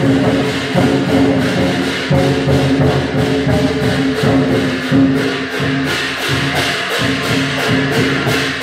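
Lion dance percussion: a Chinese drum, cymbals and gong playing a steady driving rhythm, with cymbal clashes about four times a second over the ringing of the gong and drum.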